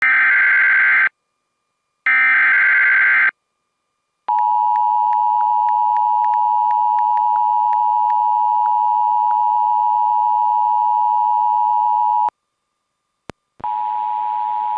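Emergency Alert System tones on a radio broadcast: two one-second bursts of screeching SAME digital header data, then the steady two-tone EAS attention signal for about eight seconds. After a short gap and a click, another steady tone over hiss starts near the end.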